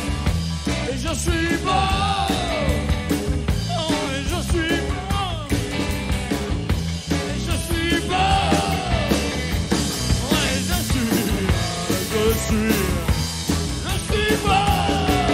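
Live rock band playing loud and steady: electric guitars, electric bass and drum kit, with high notes that bend up and down over the beat several times.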